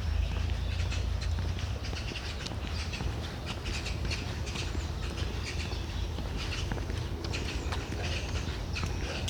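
Birds chirping and calling, with many short, overlapping calls, over a steady low rumble.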